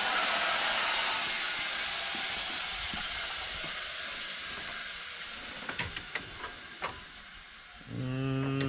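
A steady hiss that slowly fades away over about six seconds, then a few light clinks of hand tools as a steel toolbox drawer is rummaged through. Near the end a man hums one low, steady note.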